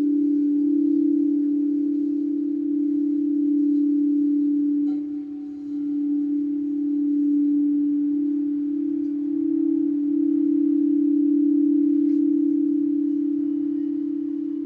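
Crystal singing bowl ringing with a steady low hum that wavers. Light chime notes ring faintly over it, with a couple of soft strikes.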